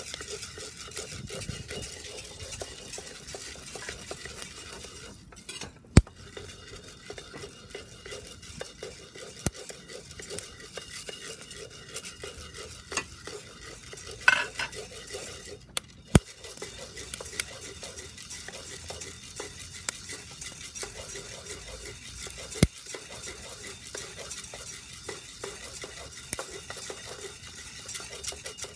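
Coffee beans being roasted and stirred with a wooden spatula in a round-bottom cast-iron pot: continuous rattling and scraping of the beans, over the steady hiss of a camping gas burner. A few sharp clicks stand out along the way, and there is a short ringing knock about halfway through.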